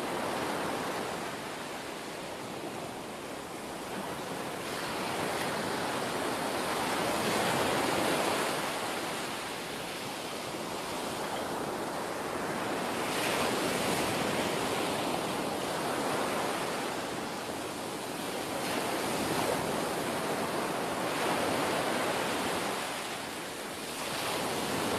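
Ocean waves washing, rising and falling in slow swells every few seconds. This is the soundtrack of a rendered sea video, played over a Zoom screen share.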